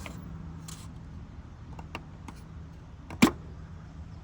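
Small clicks and knocks from parts being handled in a car's engine bay, with one loud, sharp click a little after three seconds in, over a low steady hum.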